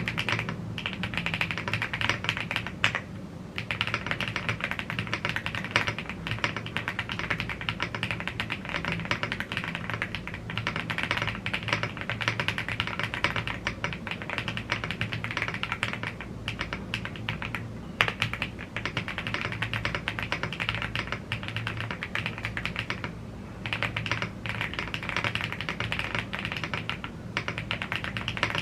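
Continuous typing on a YUNZII AL75 gasket-mounted aluminium mechanical keyboard with Blue Grey tactile switches and double-shot PBT keycaps: a dense, steady stream of key clicks, with short pauses about three seconds in and again about twenty-three seconds in.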